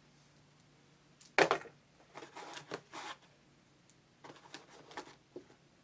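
Drone kit parts and packaging being handled: a sharp knock about a second and a half in, then two stretches of crinkly rustling and small clicks.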